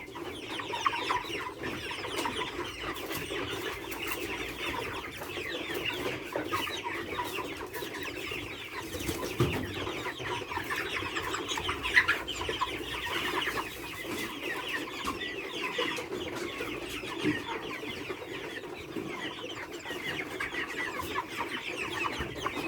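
A flock of chickens clucking continuously, many birds calling over one another, with a sharp knock about halfway through.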